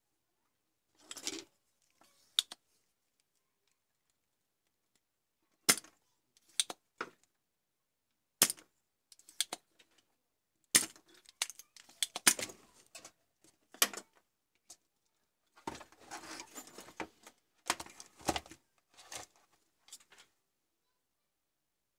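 Spring-loaded desoldering pump being cocked and fired over a circuit board: a run of sharp snaps a second or two apart, mixed with small tools clattering and being handled on the bench.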